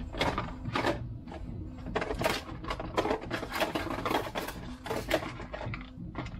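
Small hardware parts being rummaged through by hand: a quick, irregular run of light clicks and rattles as pieces knock together.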